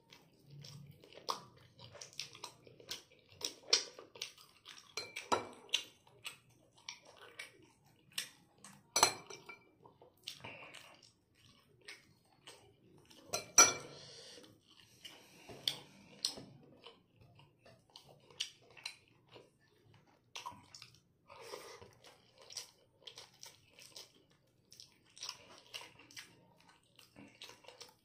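Close-up eating sounds: chewing and mouth noises of a man eating braised pork belly and rice by hand, with scattered light clinks of plates. Two sharper knocks stand out near the middle.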